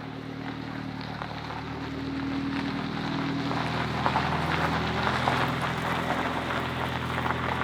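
A car engine idling steadily, with the hiss of rain falling on surfaces over it; the rain grows louder around the middle.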